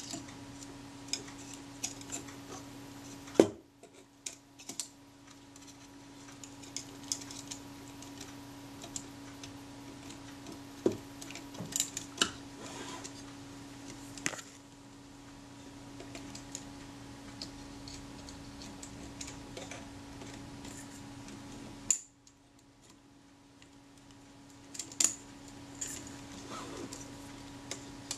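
Scattered light clicks and metallic taps of small camera parts being handled as the front lens and shutter assembly of a Rolleiflex Automat TLR is fitted to the body against its awkward spring. There is one sharper knock about three and a half seconds in, over a steady low hum.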